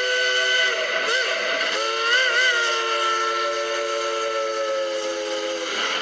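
Shay #2 geared steam locomotive's whistle sounding a chord of several notes: a held blast that breaks off about a second in, a short wavering toot, then a long blast that warbles briefly before holding steady and cutting off near the end.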